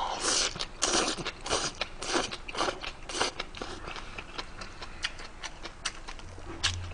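A person slurping and chewing a mouthful of noodles close to the microphone, wet and loud for the first three seconds or so. Then comes a run of small sharp clicks as the chewing goes on.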